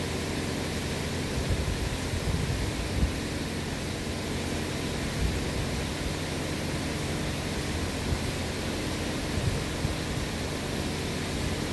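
Steady rushing air noise of a large industrial pedestal fan running, with a few faint low knocks scattered through.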